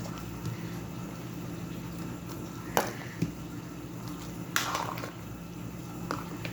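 Kitchen handling sounds during cooking: a few light knocks and a short scraping rustle about four and a half seconds in, over a steady low hum.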